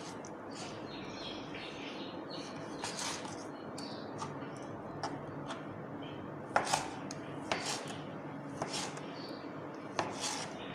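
Kitchen knife slicing raw chicken breast on a plastic cutting board: irregular light taps and knocks as the blade goes through the meat and meets the board, the sharpest a little past the middle and again near the end.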